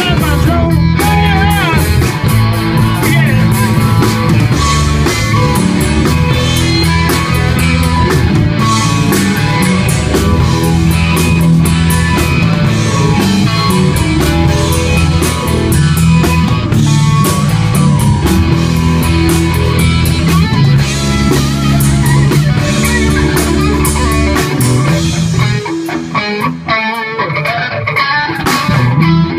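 Live rock band playing an instrumental passage: electric guitars over bass and drums, with no singing. About 25 seconds in, the bass and drums drop out and the guitar carries on alone.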